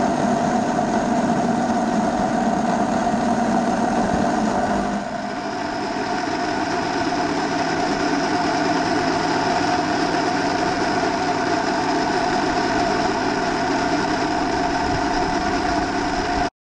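Miniature garden-railway train running on its raised steel track, heard from aboard the train: a steady running hum with several fixed ringing tones. The tone changes about five seconds in, and the sound cuts off abruptly at the end.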